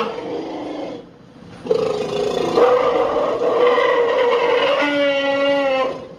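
Sound-designed diplodocus call assembled from animal recordings: the tail of one call, a short pause, then a single long, low call of about four seconds that steadies into a clear held pitch before cutting off.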